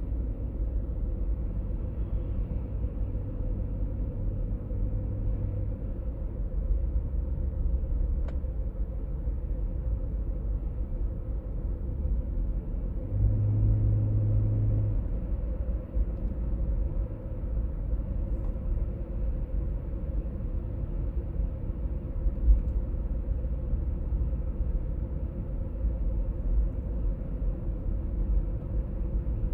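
A 1996 BMW E39 523i automatic being driven, with steady road and drivetrain rumble and a low hum that comes and goes, loudest about 13 to 15 seconds in. The hum is an undiagnosed fault heard at about 50–60 and 70–80 km/h.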